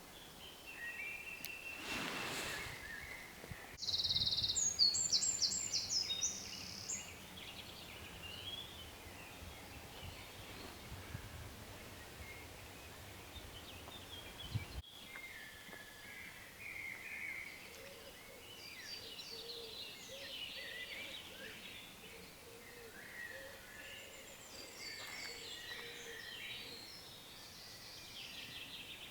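Woodland birdsong: several small birds singing and calling in short high phrases, with one loud, rapid trilled phrase about four seconds in.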